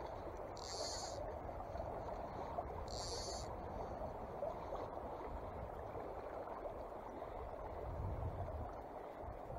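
Small, swift mountain creek running steadily over a rippled, shallow bed: a continuous rush of water. Two short high-pitched chirps come about one second and three seconds in.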